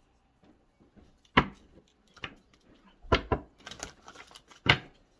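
Tarot cards being handled: a few sharp taps, the loudest about a second and a half in, just past three seconds and near the end, with light rustling between.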